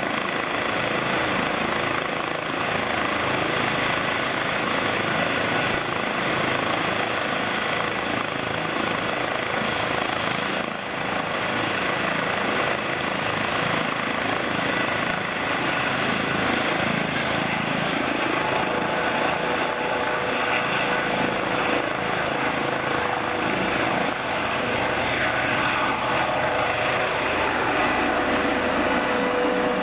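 Airbus H135 twin-turbine helicopter running with its rotor turning: a steady turbine and rotor noise. In the second half a high whine slowly rises in pitch, and the helicopter lifts off near the end.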